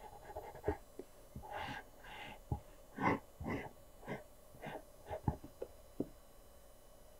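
Graphite pencil sketching on paper: a run of short, irregular scratchy strokes, dying away about six seconds in.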